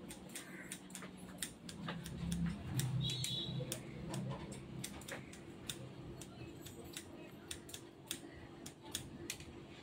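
Barber's scissors snipping through hair in a run of quick, crisp cuts, about two or three a second.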